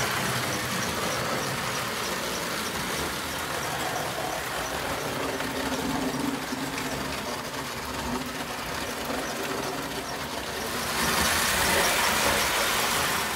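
American Flyer S-gauge model trains running on the layout: a steady whirr of the electric motor and the clatter of small metal wheels on the track. It gets louder near the end as the cars pass close by.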